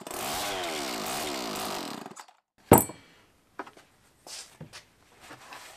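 Homelite XL 26.2cc two-stroke chainsaw engine firing on half choke, running briefly with its speed surging up and down several times, then dying about two seconds in. A single sharp, loud knock follows, with a few light clicks of handling.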